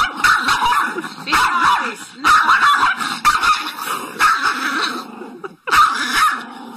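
Small terrier snarling and yapping in rough play, a rapid run of short, choppy yips and growls with a brief pause a little past five seconds in.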